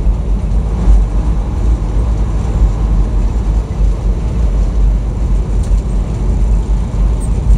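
Steady low drone of a truck's engine and road rumble heard inside the cab while cruising at highway speed.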